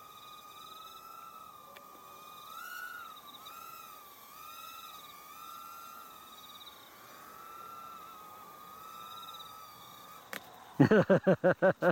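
Tiny quadcopter's motors and propellers whining, the pitch wavering up and down as the throttle changes. The whine cuts off about ten seconds in, as the quad drops into the grass.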